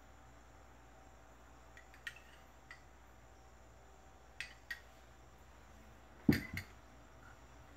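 Plastic containers and a glass being handled and set down on a tabletop: a few light clicks and clinks, then a louder double thud about six seconds in.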